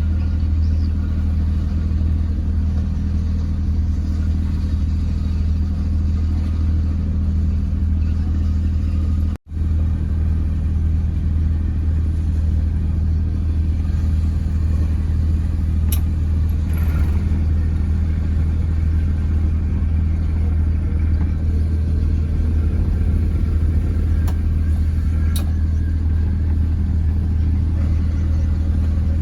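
Fishing boat's engine running steadily at a constant speed, a deep unchanging drone, with a brief dropout about nine seconds in.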